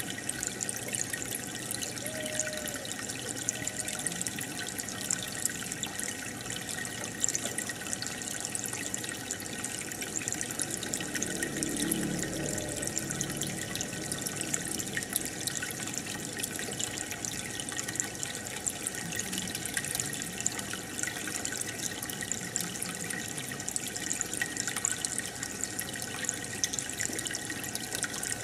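Aquarium water bubbling and trickling steadily, with many small bubble pops, from the air stream rising through the tank.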